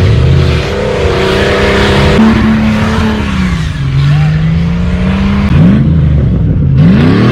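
Off-road vehicle's engine running hard, its pitch rising and falling with the throttle, with two quick revs sweeping upward in the last couple of seconds.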